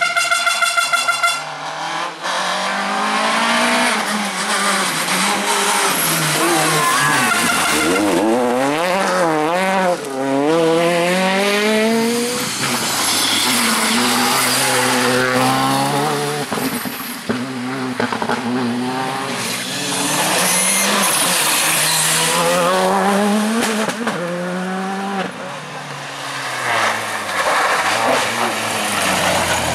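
Rally cars at full attack on an asphalt stage: engines revving hard and dropping through gear changes as several cars pass in turn, with tyres squealing in the corners. A short stuttering burst of engine note right at the start.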